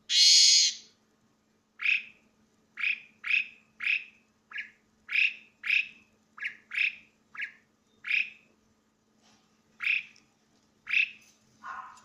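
A caged Asian pied starling calling loudly. It opens with one harsh, shrill screech, then gives a long string of short, sharp notes, roughly one or two a second with uneven gaps.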